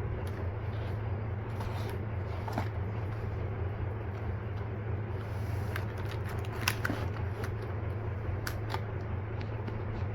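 Scattered light clicks and rustles of small items being handled, over a steady low hum.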